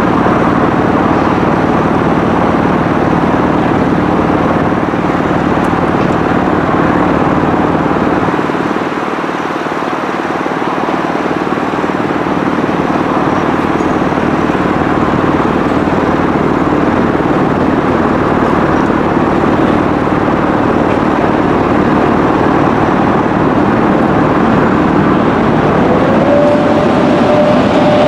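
VR Sr1 electric locomotive running slowly with a train of coaches, a loud steady rumble with a low electrical hum. Near the end a higher tone rises and then holds.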